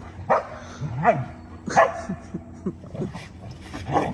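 Dogs barking and yipping during rough play-wrestling in snow: four loud barks spread across the few seconds, with shorter yelps in between.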